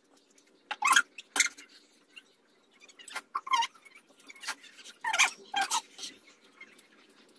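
People eating noodles: brief slurps and mouth noises at uneven intervals, several short ones over a few seconds, over a faint steady hum.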